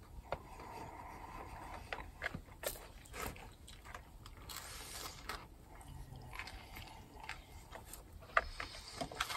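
Someone eating: irregular biting and chewing clicks with small scrapes, close by.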